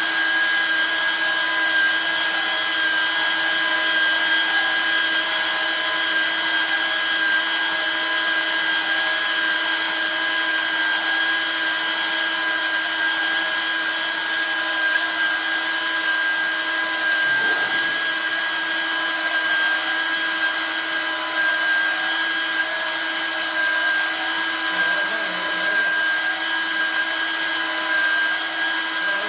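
Portable pipe cutting and beveling machine running steadily, its motor giving an even whine that holds one pitch throughout.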